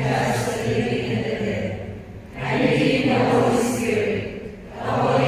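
A congregation reciting rosary prayers together in a flat, chant-like unison, in phrases of about two seconds with two short breaks.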